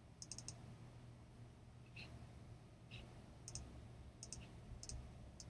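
Faint computer mouse clicks over quiet room tone: a quick cluster of clicks at the start, then single clicks every half second to a second, as a file is selected and opened.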